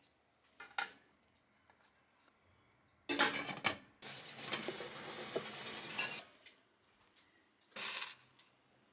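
Pots and dishes being handled in a kitchen while food is set up to steam: a light clink, then a loud clatter about three seconds in, about two seconds of steady noise after it, and a short clatter near the end.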